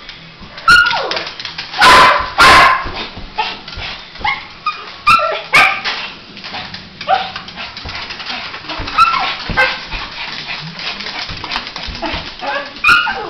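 Small dog barking and yipping over and over in short excited calls, several dropping in pitch, with the two loudest close together about two seconds in.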